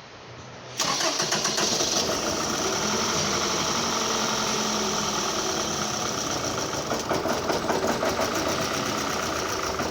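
A 2009 Toyota Camry engine starting about a second in, then running steadily at idle. The car has misfire codes logged for cylinders 2 and 3 and a rough, hunting idle.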